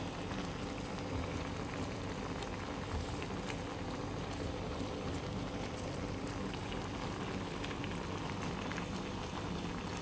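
Water boiling in a stainless steel pot of steaming giant freshwater prawns: a steady bubbling with small scattered pops.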